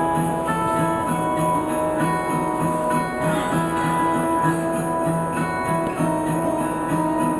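Background music: sustained melody notes over a bass line that repeats about twice a second.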